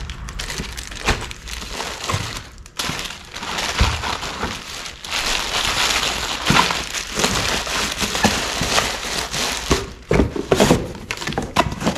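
Packaging material crinkling and rustling, with scattered knocks, as a part is packed back into its box.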